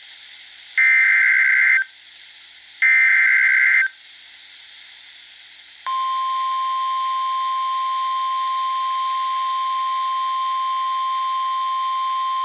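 NOAA Weather Radio Emergency Alert System signal: the last two of three one-second SAME digital header bursts, then about two seconds later the steady 1050 Hz warning alarm tone starts and holds. This sequence marks the start of a warning-level alert, here a severe thunderstorm warning.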